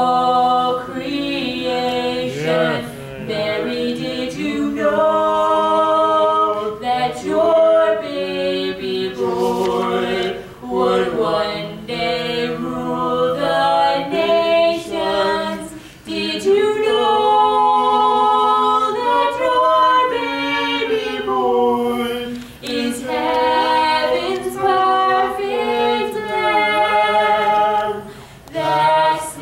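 A woman and a man singing a song together into handheld microphones, their voices in harmony, phrase after phrase with short breaths between.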